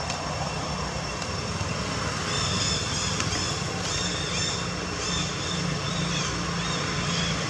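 A steady motor-like drone, with a run of short, high-pitched chirping calls starting about two seconds in and repeating roughly twice a second.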